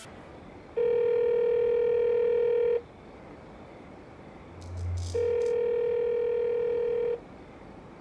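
Telephone ringing tone: a steady buzzing tone about two seconds long, heard twice with a pause of about two and a half seconds between. Between the two rings there is a short low thud with a few faint clicks.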